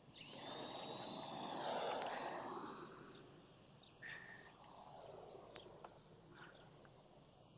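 A 40 mm 12-blade electric ducted fan spooling up to full throttle: a high whine rises in pitch over the first second or so, then holds steady over a rush of air. The sound fades as the model flies away.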